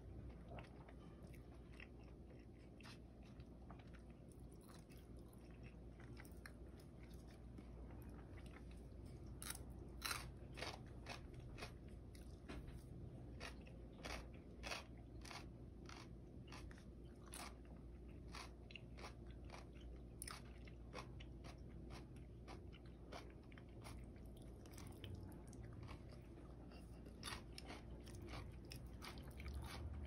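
Faint close-up eating sounds: a person chewing mouthfuls of bibim-guksu (spicy cold noodles), with irregular soft clicks and crunches that come thicker from about ten seconds in, over a steady low hum.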